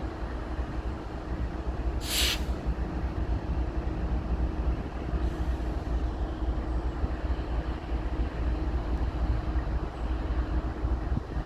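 GE C44-9W diesel locomotive leading a freight train at speed, heard from a vehicle pacing alongside: a steady low rumble with a steady hum. A brief hiss comes about two seconds in.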